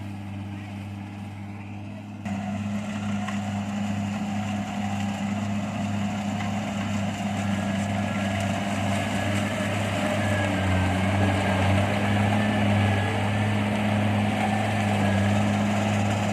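Kubota DC70 crawler combine harvester's diesel engine running steadily under load, stepping up suddenly in loudness about two seconds in and building a little after that.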